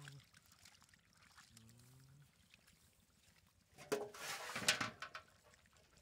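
Hands splashing and grabbing in shallow muddy water among stranded fish, with a burst of splashing about four seconds in.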